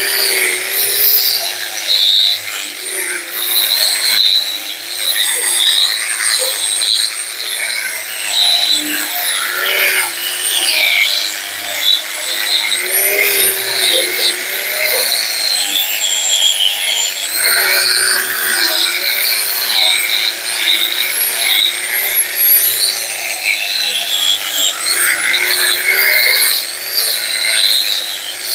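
Handheld electric grinder running continuously under load while polishing a metal car suspension part, with a harsh high-pitched scraping of the wheel on the metal. The motor's whine wavers and dips in pitch several times.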